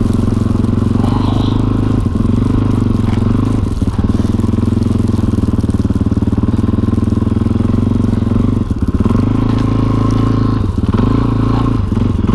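Motorcycle engine running steadily in first gear at low speed through deep snow. The engine note dips briefly several times as the throttle eases off.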